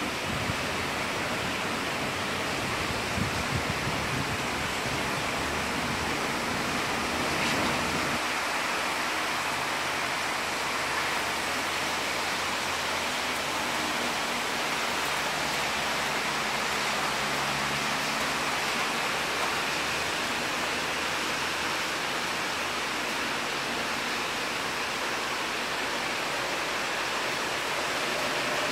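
Heavy rain pouring steadily onto trees, a continuous even hiss. A low rumble sits underneath for about the first eight seconds, then drops away.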